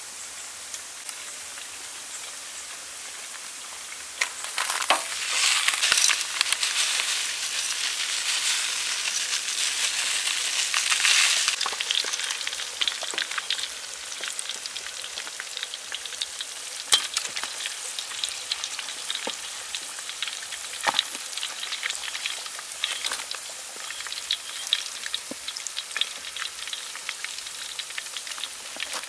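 Battered shrimp deep-frying in hot oil with a wooden spatula stirring: a loud sizzle that swells about four seconds in and eases off near the middle, then a steadier sizzle with scattered pops and crackles.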